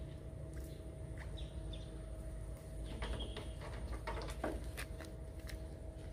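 Outdoor ambience of scattered short bird chirps over a low steady rumble, with a cluster of sharp clicks a little past halfway.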